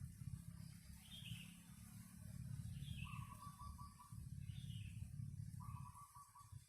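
Wild birds calling in a garden: three short, high, falling chirps about a second and a half apart, and two brief rapid trills lower in pitch, over a faint steady low rumble.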